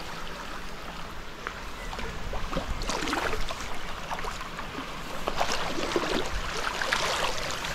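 Water sloshing and splashing around legs wading through a shallow stream, in uneven surges over the steady flow of the stream.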